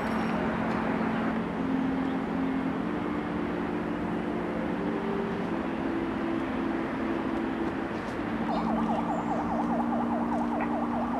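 A steady city din with a low hum, and from about eight seconds in an emergency-vehicle siren in its fast warbling mode.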